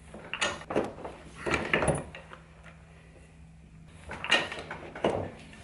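Knocks and scrapes from working a Mighty Wonder clicker press: a steel-rule cutting die and leather shifted on the cutting board, and the press worked to punch out wallet pieces. Two clusters of clunks, one in the first two seconds and another about four seconds in.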